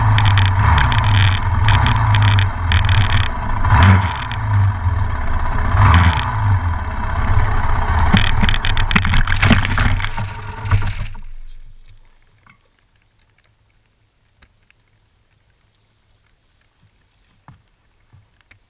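Yamaha YZ400F four-stroke single-cylinder motocross engine running loud at close range, with several sharp knocks and scrapes as the bike goes down into brush. About eleven seconds in the engine sound dies away to near silence with a few faint ticks and rustles.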